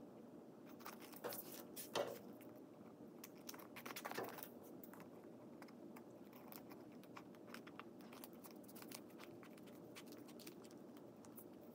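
Scissors snipping through contact paper, with the plastic sheet crinkling as it is turned. The sound is faint throughout, with a few louder snips in the first four or five seconds.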